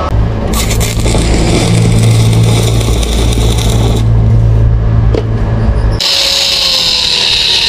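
Stick (arc) welding: the welder's steady low hum under the crackle of the arc for about six seconds. Then an angle grinder cuts into a steel pipe with a high-pitched whine.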